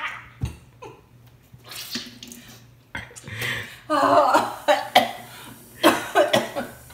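A person coughing and clearing their throat in short separate bouts, the strongest about four and six seconds in, with dust caught in the throat.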